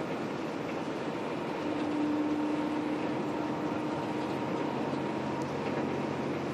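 Steady running noise inside the passenger cabin of a Scania K113 coach at highway speed: engine, tyres and wind together. A humming tone comes in about two seconds in and fades by about four and a half seconds.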